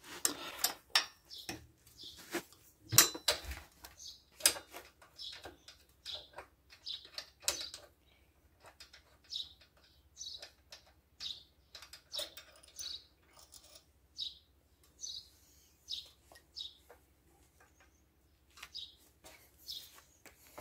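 Metal wrench clinking and clicking on the valve-cover bolts of a small moped engine as the bolts are undone, followed by a run of short, high chirps about a second apart.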